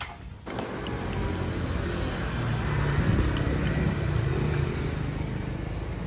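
Steady background rumble of road traffic, starting about half a second in, with a few faint clicks over it.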